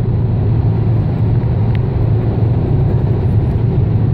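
Steady low rumble of a car's engine and tyres, heard inside the cabin while cruising on a motorway.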